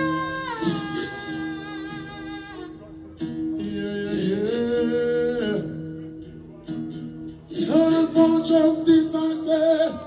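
A man singing live through a microphone in three long phrases of held, gliding notes, over a steady instrumental accompaniment.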